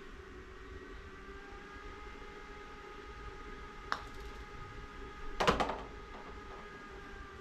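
LAB DF3 putter clicking against a golf ball about four seconds in. About a second and a half later comes a louder cluster of knocks as the rolled ball rattles to a stop, all over a steady room hum.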